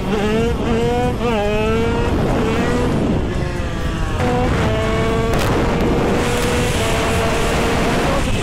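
Big-bore tuned two-stroke Derbi 50cc motorcycle engine at high revs under way. Its pitch climbs through a gear change about a second in, then holds a steady high note with small dips, over wind noise.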